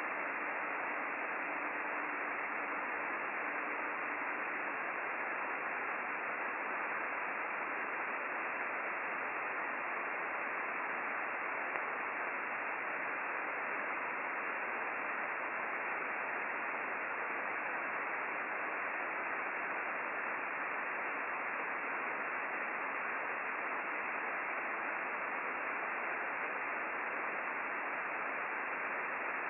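Icom IC-9700 receiver hissing in upper sideband, tuned to the RS-44 satellite's 435 MHz downlink with no station coming through. The hiss is steady and even, held in a narrow voice-width passband, with a faint steady low tone for the first few seconds.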